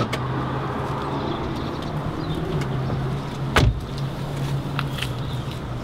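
Car body handled at the open driver's door of a Mercedes A180: a sharp click at the start and one heavy clunk about three and a half seconds in, over a steady low hum, with a few light ticks after.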